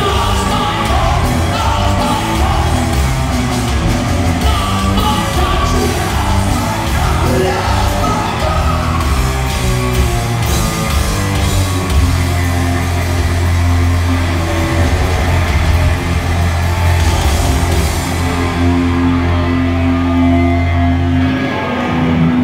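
Live hard rock band playing loud through a hall PA, with electric guitars, drums and shouted singing. Near the end the cymbals fall away and a low chord is held, then the music breaks off.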